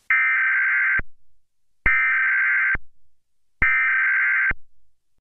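Broadcast alert tone sounding three times: three identical buzzy beeps about a second long with short gaps between them, the attention signal that heralds the emergency tsunami warning.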